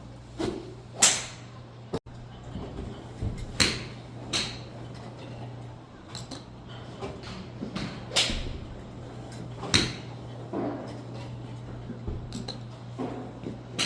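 Golf practice swings whooshing through the air, several swishes a couple of seconds apart, over a steady low hum.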